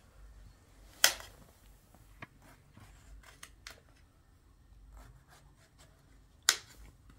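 Knife cutting a melon on a plate: two sharp clicks about five and a half seconds apart, with a few fainter clicks of cutting between them.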